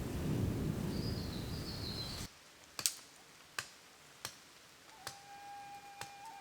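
Rain and a low rumble with a bird chirping for about two seconds, then an abrupt cut to quiet with sharp single ticks about every 0.7 s. A steady held tone comes in near the end, the start of intro music.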